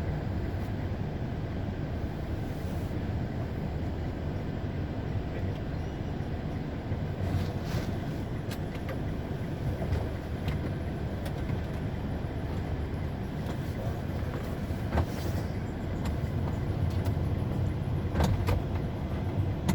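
Steady low rumble of a moving vehicle heard from inside its cabin, with a few light clicks and knocks in the second half.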